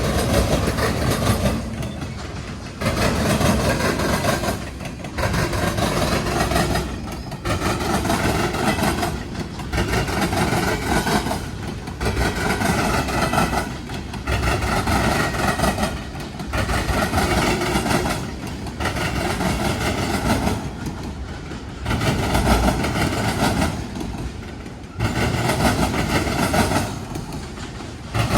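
Freight cars of an intermodal train rolling across a railroad diamond crossing, the wheels clattering over the crossing. The clatter comes in loud stretches that swell and drop away about every two seconds.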